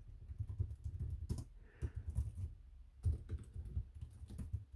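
Typing on two laptop keyboards in turn, an older Dell Latitude and the Dell Latitude 9420 2-in-1: quick runs of key clicks with a short pause a little past halfway. One keyboard sounds a little louder than the other.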